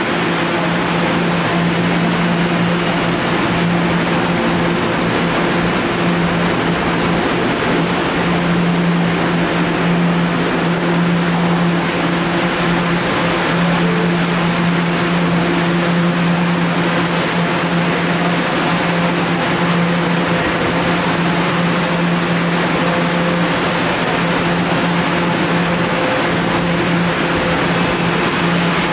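Kawasaki R211A subway car standing at the platform, giving off a steady electrical hum over an even wash of station noise.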